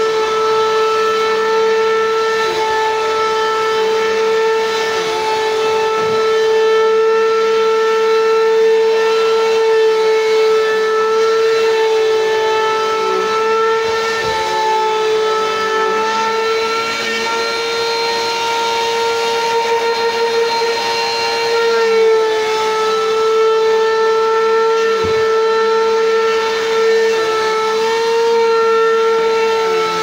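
Bissell PowerForce Compact bagless upright vacuum cleaner running as it vacuums a rug: a loud, steady, high motor whine, its pitch dipping slightly now and then.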